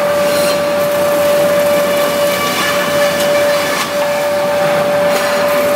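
REX wood planing machine running steadily, a constant whine over a dense rushing noise.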